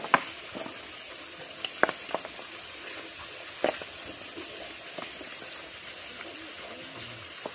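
Steady hiss of running water with a few scattered light clicks and taps from people eating off plates.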